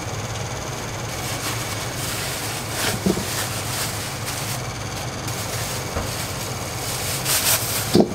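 Restaurant kitchen noise: a steady mechanical roar with a low hum, broken by a few short clatters about three seconds in and near the end.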